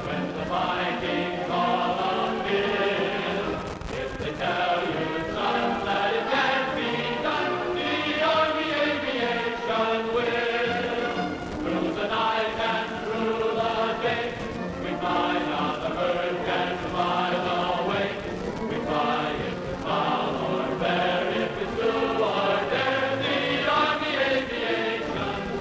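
A choir singing, as sustained music with a narrow, old-recording sound.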